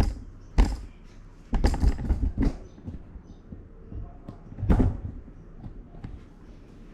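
An Allen key working the cable clamp bolt on a Shimano Deore 10-speed rear derailleur, with a few sharp metal clicks and knocks: one about half a second in, a cluster around two seconds, and one near five seconds.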